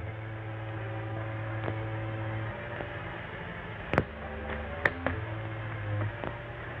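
Steady low hum on an old film soundtrack. Its pitch shifts about midway and shifts back near the end, and two sharp clicks come about four and five seconds in.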